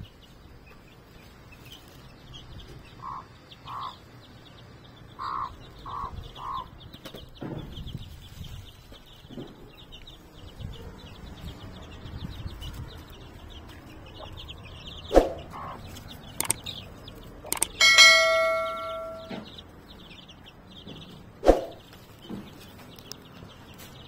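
Hen clucking in short low notes while her chicks cheep faintly and continuously. About three-quarters of the way through, a metal object is struck once and rings out, the loudest sound. A couple of sharp knocks come before and after it.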